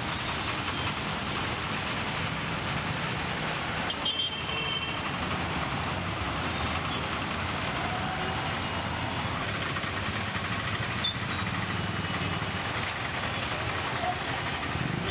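Street traffic in heavy rain: vehicle engines running under a steady hiss of rain and wet tyres, with a brief high-pitched sound about four seconds in.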